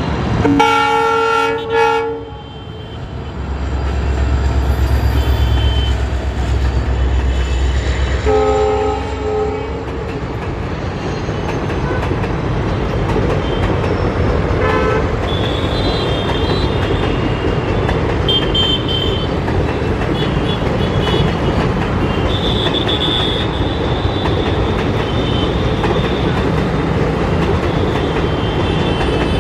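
A WDP4D diesel-electric locomotive passes at speed. Its horn sounds near the start and again about eight seconds in, and the low, heavy sound of its EMD 16-cylinder two-stroke engine swells as it goes by. Then the passenger coaches roll past with steady wheel noise on the rails and high wheel squeals now and then.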